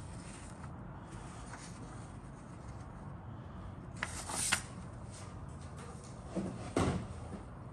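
A paper instruction sheet being handled: a crisp rustle about four seconds in, then two short soft knocks near the end as the sheet is moved off the cutting mat, over a steady low hum.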